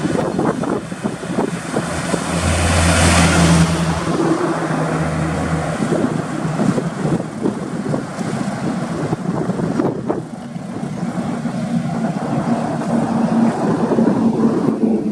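Heavy diesel trucks on a highway: a Tata truck passes close by about three seconds in, with a loud rush of tyre and wind noise over its engine hum. Later a loaded truck's engine drones steadily, growing louder near the end as it pulls up a ramp.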